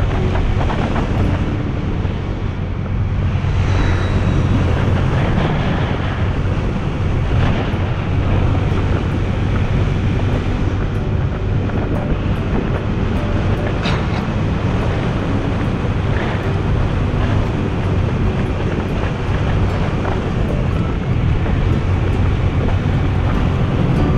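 Motorbike engine running steadily at cruising speed, with wind rushing over the camera microphone as the bike rides along the road.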